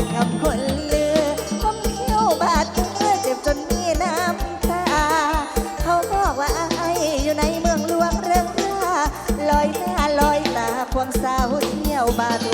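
Live Isan folk band music: a fast, steady drum beat under a wavering lead melody, played as an instrumental passage without sung words.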